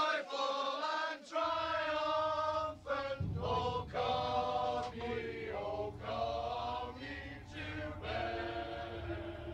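A group of men singing a song together, holding long notes. A low steady drone sits underneath from about a second and a half in.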